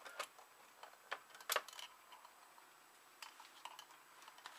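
Handling noise as the camera is moved up close: a few scattered clicks and light knocks, the loudest about a second and a half in, with a cluster of smaller ticks later.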